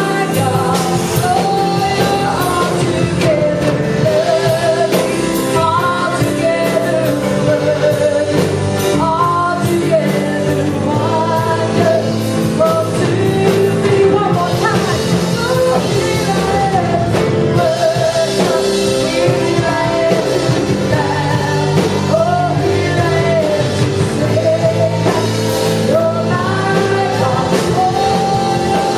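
A praise band playing and singing a worship song: voices carry the melody over piano and guitar chords, continuous and steady in level.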